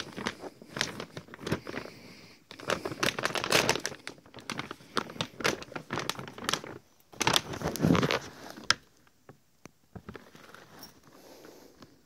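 Plastic sack of dry cat food, a 10 kg Smilla bag, being torn open along its top strip and the stiff bag mouth pulled apart: loud crinkling and rustling in bursts that die away after about nine seconds.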